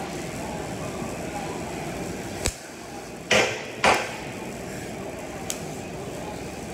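Two short bursts of MIG welding arc crackle, about three and a half and four seconds in, from short tack welds on sheet metal, preceded by a single sharp click, over a steady shop hum.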